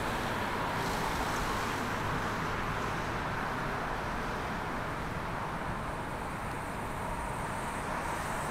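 Steady city street traffic noise: a continuous, even rush of passing vehicles with no distinct single event.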